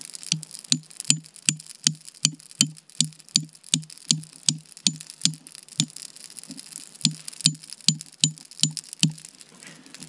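An axe tapping the spine of a knife lodged in the top of a stick, driving the blade down to split the wood. The knocks come steadily, about two and a half a second, with a short pause about six seconds in.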